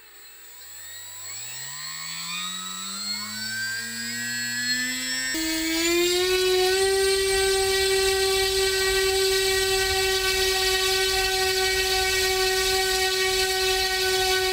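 A 2212 1400KV brushless motor spinning an 8x4 propeller on a thrust-test stand, run up from low speed. Its whine rises in pitch and loudness for about five seconds, then settles into a steady high-pitched drone under heavy load, drawing about 200 W.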